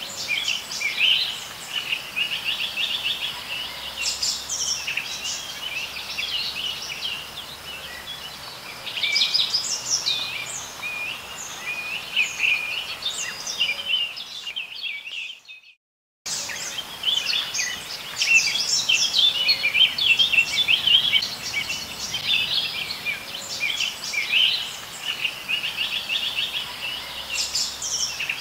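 Many birds singing and chirping together, a dense chorus of short high notes and quick trills. It fades out about fifteen seconds in and starts again a moment later.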